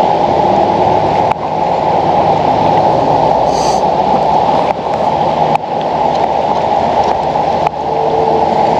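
Fast-moving river water rushing steadily and loudly, with a few faint knocks about a second and a half, four and a half and seven and a half seconds in.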